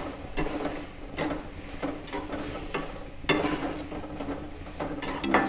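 A perforated steel spoon scrapes and knocks against a metal kadai as chopped vegetables and spices are stirred in butter, a stroke about every half second, the loudest a little past halfway, over a faint sizzle.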